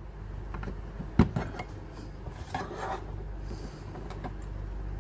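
Plastic rod of a magnetic levitation set being fitted into its plastic base: a sharp knock about a second in, then plastic scraping and rubbing, with a few light clicks.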